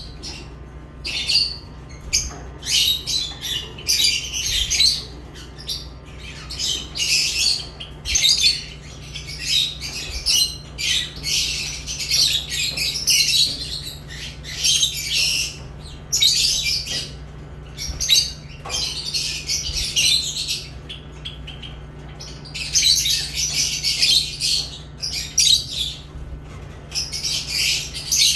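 Lovebirds chirping in rapid high-pitched bursts that come in clusters with short pauses between, over a faint steady low hum.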